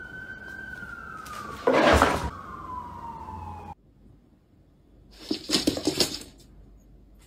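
A thin whistle-like tone slides slowly downward for nearly four seconds, with a short loud rush of noise about two seconds in. After a brief silence, a flurry of quick taps and scuffs follows: a cat's paws and claws scrambling on a wood-laminate floor.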